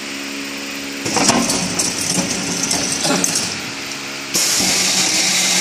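A 3-in-1 bottled-water filling machine for 3- and 5-gallon bottles running. A steady hum is followed from about a second in by clanking and clicking of the chain conveyor and bottle-handling mechanism. Near the end a steady hissing rush starts suddenly.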